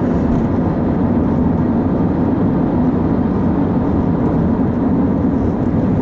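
Steady low rumble of a moving car's engine and tyres, heard from inside the cabin.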